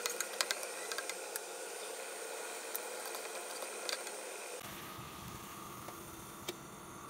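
Onion, tomato and scallion slices sizzling in oil in a nonstick pan, a steady hiss with scattered sharp crackles and spatula clicks, thickest in the first second and a half.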